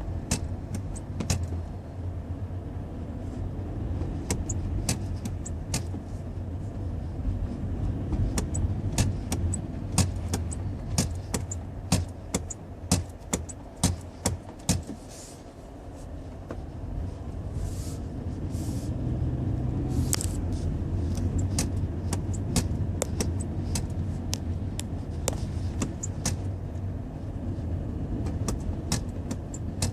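2016 Toyota Prius driving, heard from inside: steady road and cabin rumble with many sharp clicks and knocks, thickest from about eight to fifteen seconds in. The clicking is the recurring noise the owner puts down to the brakes. A few short hisses come a little past halfway.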